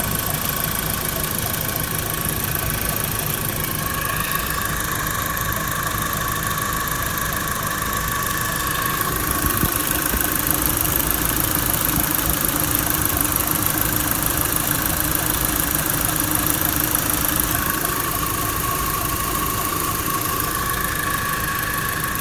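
Opel Insignia 2.0 turbo petrol engine (A20NFT) running steadily, with a thin whistle over the engine note that fades and returns. This is part of the scraping and whistling noise the owner is trying to trace.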